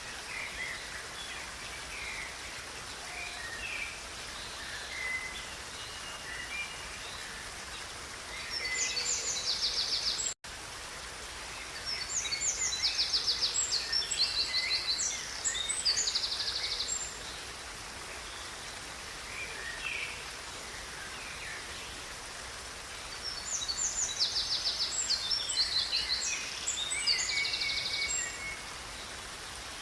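Songbird singing in three bouts of varied chirps ending in fast trills, over the steady rush of a river. The audio drops out for an instant about a third of the way in.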